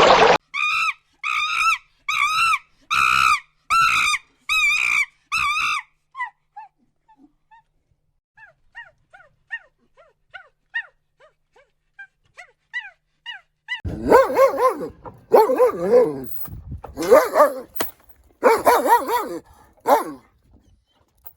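Dog sounds: a series of about eight evenly spaced high cries, then faint short whimpers, then from about fourteen seconds in a dog barking in repeated bursts.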